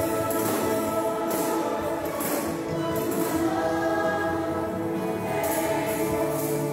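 Gospel worship song with a choir singing held notes, with short tambourine jingles recurring every second or so.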